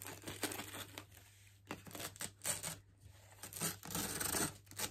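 Rustling and crinkling as a gold ribbon is pulled loose and slid off a cardboard advent-calendar box, in several uneven bursts.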